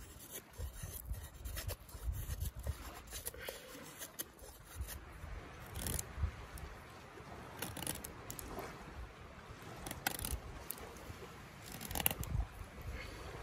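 Knife blade shaving thin curls off a dry wooden stick while carving a feather stick: a series of short scraping strokes, one every second or two, at an uneven pace.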